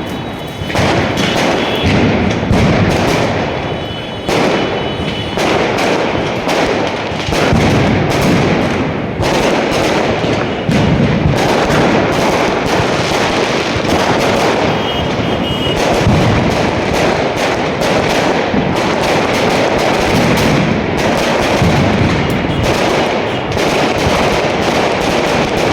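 Firecrackers going off in a rapid, continuous crackle of overlapping bangs, like a long string burning through, with no pause.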